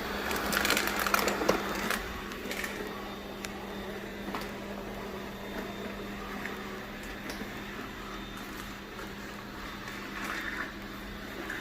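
Bissell EV675 robot vacuum running with a steady hum while it sucks up dry cat food, the hard pieces crackling and rattling into its intake, thickest in the first two seconds and then as scattered clicks.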